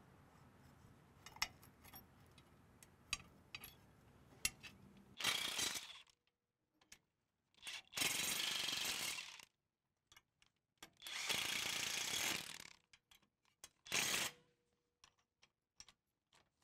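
Cordless impact wrench running in bursts as it drives in the bolts of a chain-roll plate on a corn head's stalk roll. There are four bursts, the middle two nearly two seconds long, after a few light metal clicks of bolts and socket being set in place.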